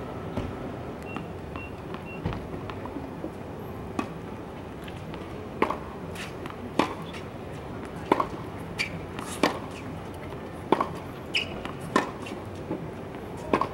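Tennis ball being hit back and forth on a hard court: sharp pops of a racket striking the ball mixed with ball bounces. A few faint knocks come early, then a steady run of sharp strikes begins about five seconds in, some ringing briefly.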